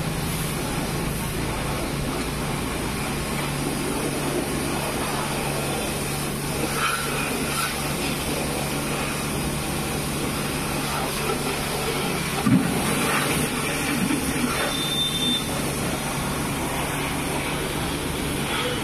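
Pressure washer running with a steady motor hum under the constant hiss of its spray, with a single knock about two thirds of the way through.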